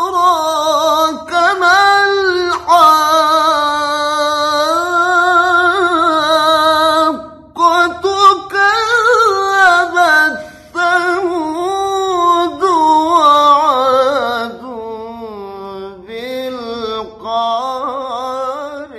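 A male qari's melodic Quran recitation: one long, high, drawn-out melismatic line, full of quick trills and wavering turns. It breaks briefly twice, about seven and ten seconds in, and sinks lower in pitch toward the end.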